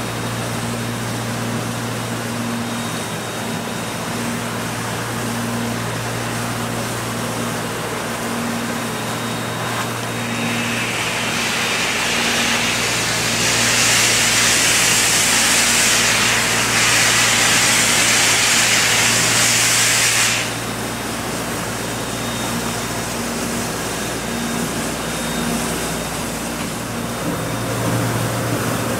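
0-4-0 steam tank locomotive crossing a trestle with a steady low running sound and a faint regular beat. About eleven seconds in, a loud hiss of steam venting builds and lasts about nine seconds, then cuts off suddenly.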